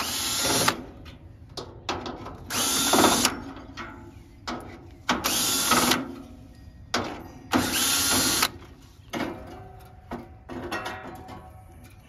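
Cordless DeWalt drill/driver spinning out the 5/16-inch (8 mm) hex screws that hold an air conditioner condenser's fan grille, in four short whirring bursts about two and a half seconds apart. Small clicks and knocks from the screws and the metal grille fill the gaps and the last few seconds.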